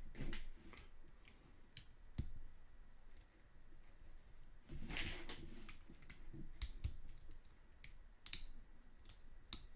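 Plastic Lego bricks clicking and tapping as pieces are handled and pressed onto the model, a scattered, irregular run of light sharp clicks.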